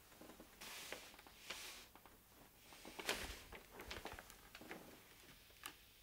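Faint rustling of clothing and soft handling noise, with a few light knocks and taps, as a person sits down at a desk and takes hold of a box on it.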